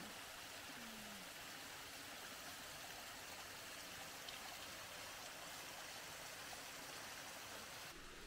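Steady, faint rushing of running water.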